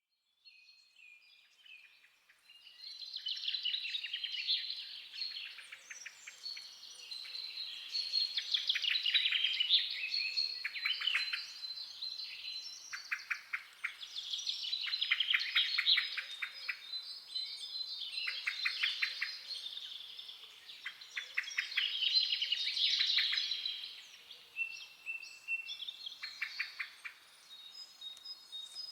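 Several wild songbirds singing and chirping at once: overlapping rapid trills and high chirps in repeating swells, fading in over the first few seconds.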